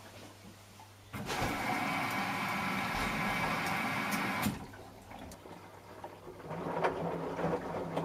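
Samsung Eco Bubble front-loading washing machine during a 40 °C colour wash: about a second in, a steady rush of water through the machine starts, and it cuts off suddenly some three seconds later. Near the end the machine gets louder again, with irregular knocks.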